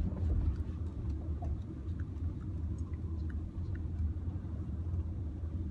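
Inside a taxi's cabin: the steady low rumble of the car driving, with a few faint clicks.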